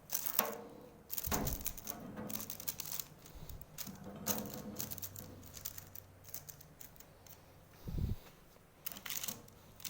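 Handling noises of baking paper being smoothed and creased over a steel panel while magnets are set down on it: irregular clicks, small metallic knocks and paper rustles, with a dull thump about eight seconds in.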